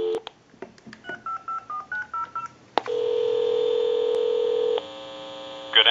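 Touch-tone (DTMF) dialer keying a quick string of digits down a telephone line, heard through a line amplifier over a low steady hum. The dial tone cuts off just before the digits, a click follows them, and then a steady ringback tone sounds for about two seconds as the call to the number goes through.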